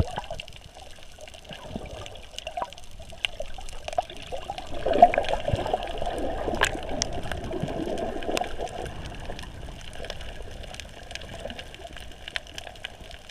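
Underwater reef ambience picked up by a camera held below the surface while snorkeling: a steady wash of water noise scattered with many small sharp clicks. A louder rush of water swells from about five seconds in and eases off by about nine.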